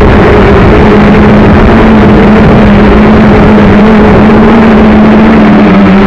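JJRC X1 brushless quadcopter's motors running in flight, a steady hum that dips slightly in pitch near the end, under a loud rush of gusting wind on the drone-mounted camera's microphone.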